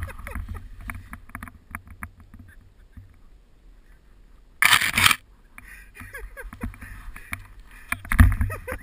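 Skis and poles crunching and scraping through deep powder snow, heard on an action camera's microphone with a low rumble of handling. A loud half-second scrape of snow comes a little past halfway, and the rumble swells again near the end.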